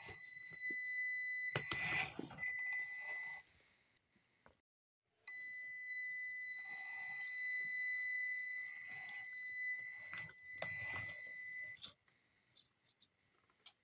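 Traxxas TRX-4M Ford F-150 RC crawler's electric motor giving a steady high-pitched whine as it crawls at low speed, with a couple of brief knocks from the truck on the cardboard course. The whine breaks off briefly about four seconds in and stops near the end.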